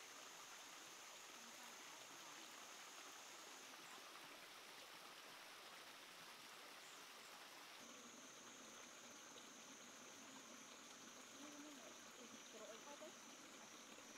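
Near silence: faint forest ambience, a soft hiss with a steady high-pitched whine that drops out for a few seconds in the middle.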